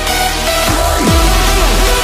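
Background electronic dance music with steady synth tones. About two-thirds of a second in, falling synth sweeps come in and a heavy deep bass takes over.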